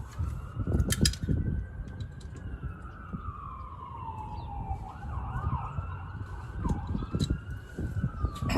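A distant emergency-vehicle siren wailing, its pitch slowly rising and falling, with a quicker yelp in the middle. Sharp clicks and knocks of hand tools run over it, the loudest about a second in.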